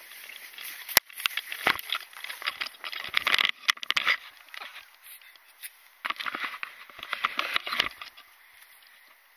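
Skis scraping and hissing over snow in two spells of irregular bursts, with a sharp knock about a second in.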